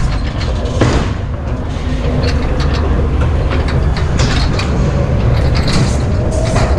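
Ghost train car rumbling along its track in the dark, with scattered sharp knocks and clacks over the rumble; the loudest knock comes about a second in, another near the end.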